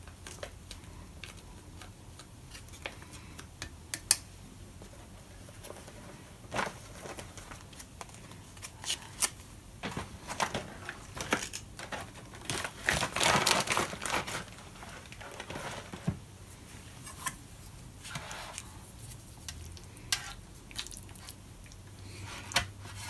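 MRE entrée pouch crinkling and rustling as it is squeezed and handled, in scattered bursts with small clicks and knocks, the densest rustling about halfway through. Near the end, a plastic spoon stirring the beef goulash in a plastic bowl.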